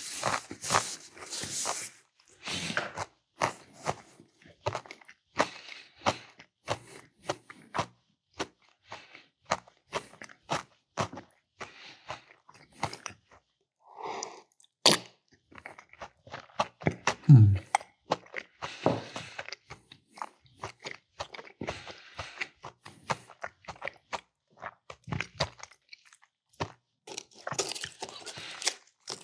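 Close-miked chewing and crunching, a person eating crunchy crackers with meat and cheese in a steady run of crackly bites. A short low vocal grunt falling in pitch comes about 17 seconds in.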